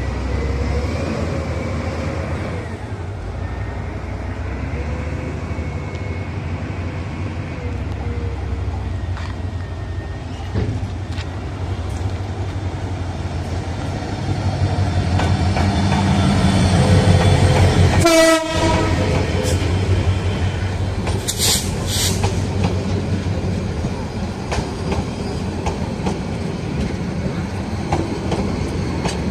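Diesel-electric locomotive hauling a passenger train approaches and passes close by, its engine rumble building to a peak, then the coaches roll past with the clickety-clack of wheels over the rails.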